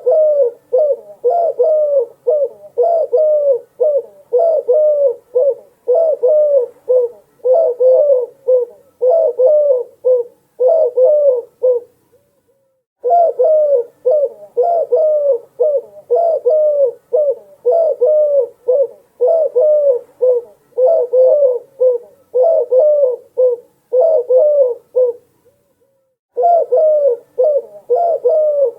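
Dove cooing: short curved coos repeated about once a second in long runs, broken by two brief pauses.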